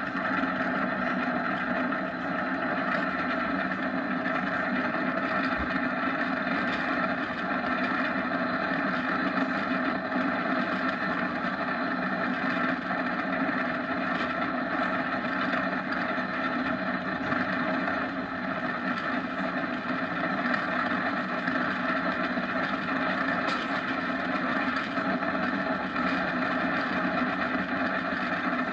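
Steady rush of wind and tyre rumble from a downhill kart running at speed on asphalt.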